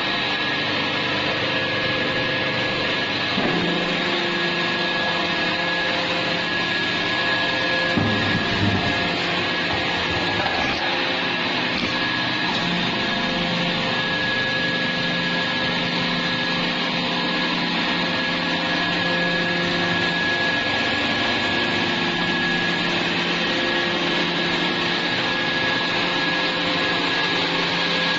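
Scrap metal baler running: a steady machine drone with a constant high whine held throughout, and a brief low clunk about eight seconds in.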